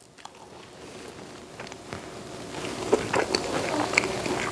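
A man chewing a bite of soft pancake taco filled with whipped cream and strawberries: irregular wet clicks and smacks of the mouth, starting faint and getting steadily louder.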